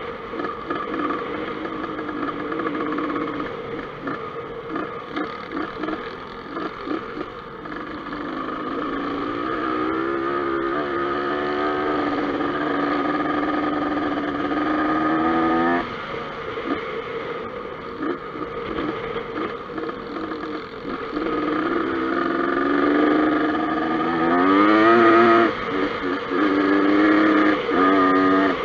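Dirt bike engine running hard on a trail ride, its pitch climbing as the throttle is held, dropping abruptly about halfway through, then climbing steeply again near the end.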